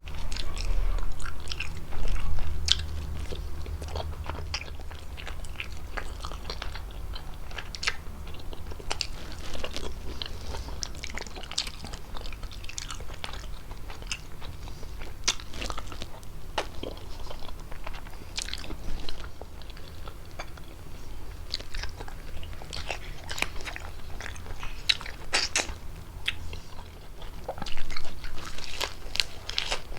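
Close-miked ASMR eating of fettuccine with chicken: a steady run of wet chewing and mouth clicks, with a few louder thumps about two seconds in and again near the end.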